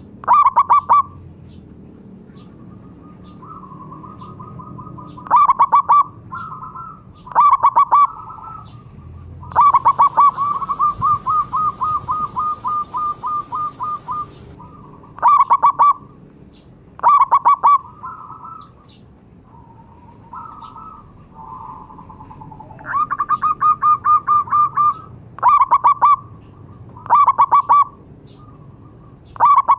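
Zebra doves (perkutut) cooing: short quick runs of staccato notes come every couple of seconds, with softer warbling coos between them. One long run of notes about ten seconds in lasts some five seconds and fades, and another run of about two seconds comes near the end.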